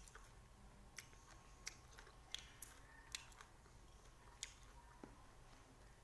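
Faint, small clicks and crunches of eating small green limes, handled with the fingers and chewed: a few sharp ticks scattered irregularly across a near-quiet room.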